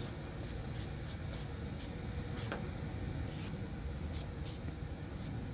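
Flat watercolour brush stroking a wet wash across paper: faint, irregular swishes over a steady low hum.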